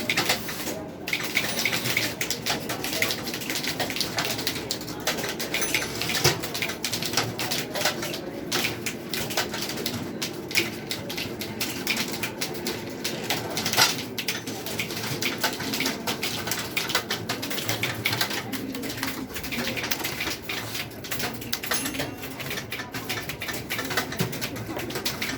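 Many keyboards being typed on at once, a dense, irregular clatter of key clicks.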